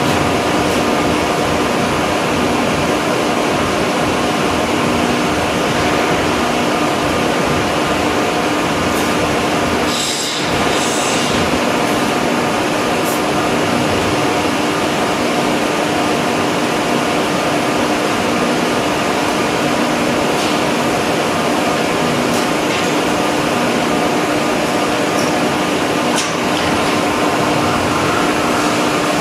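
Machinery on a plastics factory floor running steadily: a loud, even drone with a constant hum.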